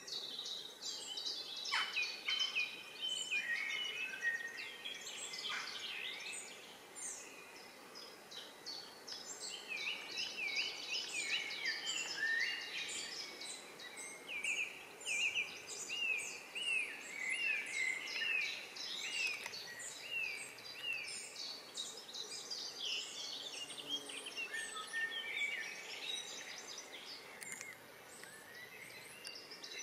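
Several songbirds singing at once, a dense run of quick repeated chirps and trills that goes on without a break, over a faint steady background hiss.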